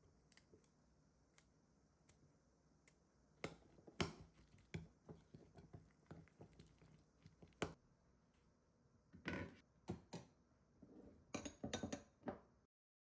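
Scattered clinks, taps and knocks of dishes and utensils being handled, a few sharp ones among quieter taps, with the sound cutting off abruptly shortly before the end.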